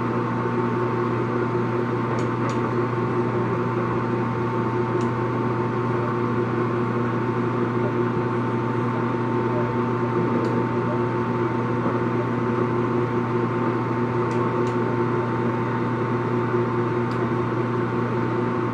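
Longem heavy-duty gap-bed lathe's headstock and spindle running steadily without a cut, a constant mechanical hum with several steady tones.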